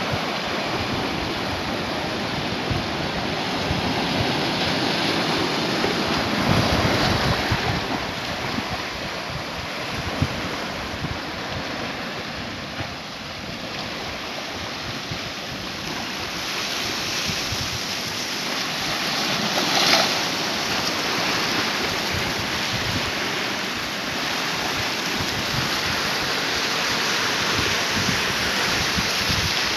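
Sea waves washing and breaking against shoreline rocks, a steady surf that swells and ebbs, with one louder crash about two-thirds of the way through. Wind buffets the microphone.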